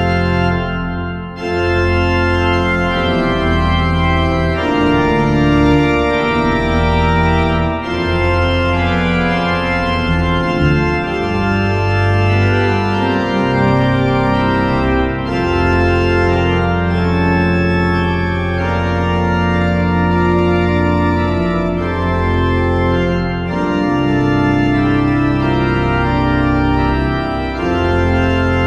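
Hauptwerk virtual pipe organ, a sampled church pipe organ, playing slow held chords over deep sustained pedal bass notes, the chords changing every second or two.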